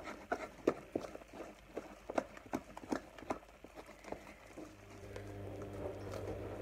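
Hands being rubbed and wiped clean of sticky slime, making a run of small irregular clicks and taps. A low steady hum comes in about five seconds in.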